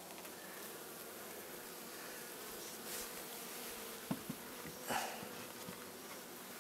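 Honeybees humming steadily in an opened hive, with a couple of light knocks and a brief scrape from the hive parts being handled a little after four seconds in.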